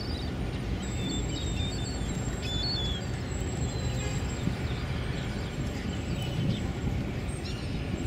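Steady low rumble of the tugboat and container ship engines on the river, with scattered short, high squeaky calls of gulls.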